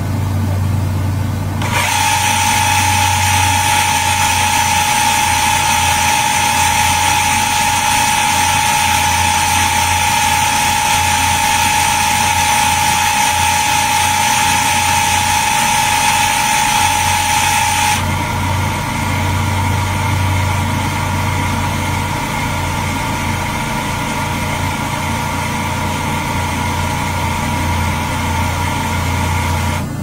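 Tape recorder rewinding: a steady motor whir with a low hum and a high whine that sets in about two seconds in and drops to a weaker tone a little past halfway.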